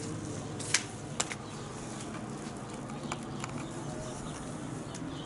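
Two sharp clicks about half a second apart, then a few fainter ticks, over a steady background hum.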